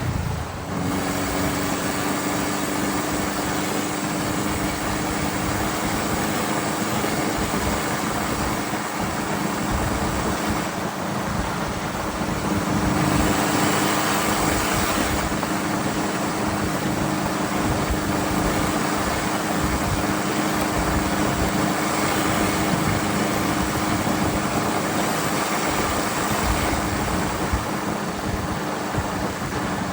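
Volkswagen Vanagon on the move: steady engine and road noise with a constant low drone.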